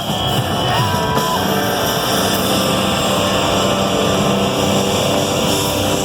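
A rock band playing live through a festival PA, a dense, loud wall of sound with sustained tones and a rising pitch glide about a second in.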